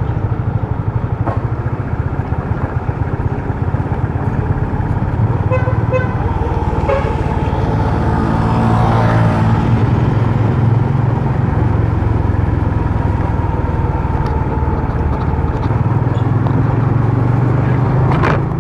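Honda RS150R's 150 cc single-cylinder four-stroke engine running steadily under way, with road and wind rumble. A vehicle horn gives a few short toots about six to seven seconds in, and the running noise grows louder after about eight seconds.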